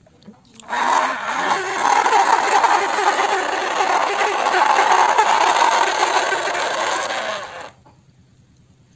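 Loud, steady engine-like running noise for a plastic toy excavator, starting suddenly about a second in and cutting off abruptly near the end.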